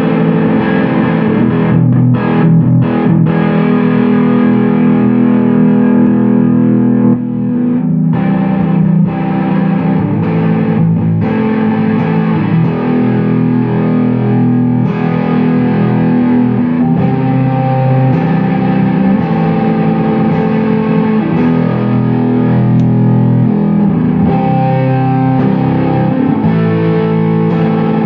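Electric guitar played through a KHP FX Audio Ratten distortion pedal: loud, heavily distorted chords ringing out and changing every second or two, with short breaks about a quarter and a third of the way in.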